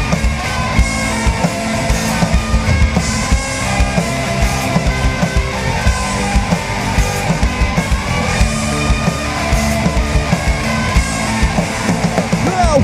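Rock band playing an instrumental passage without vocals, with guitar and a steady drum beat.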